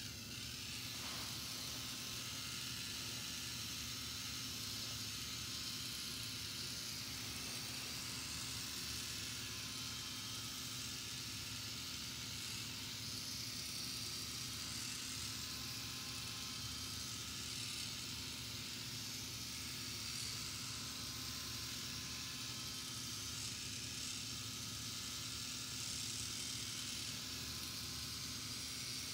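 Small electric motor driving a K'nex model Trabant ride through plastic gears, running with a steady whir, low hum and hiss that does not change.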